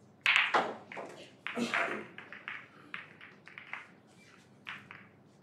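Snooker break-off: the cue ball cracks into the pack of reds about a quarter second in. A run of sharp clicks and knocks follows as the reds strike each other and the cushions, thinning out over the next few seconds.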